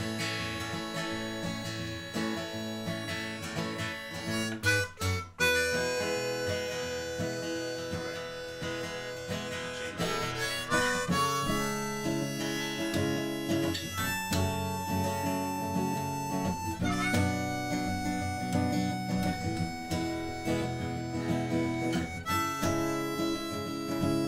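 Background music with harmonica over acoustic guitar, with a brief break about five seconds in.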